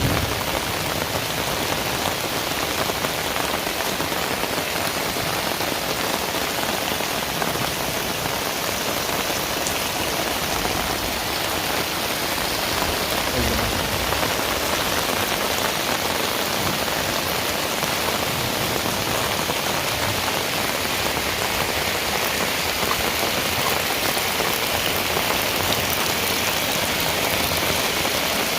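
Heavy rain falling steadily as an even, dense hiss.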